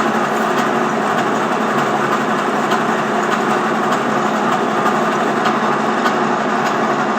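Centre lathe running steadily, its motor and gearing giving an even mechanical din with faint ticks, during a facing cut.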